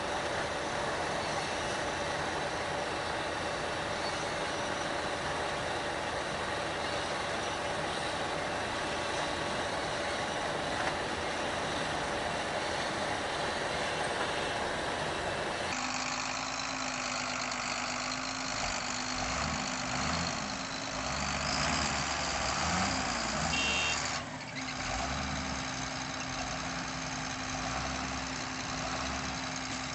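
Diesel engine of a New Holland TC57 combine harvester running steadily; about halfway through the sound changes abruptly to tractor engines running in a muddy field, their pitch rising and falling.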